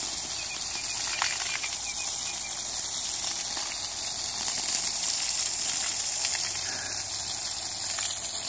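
Garden hose spraying a steady jet of water that splashes over alpacas.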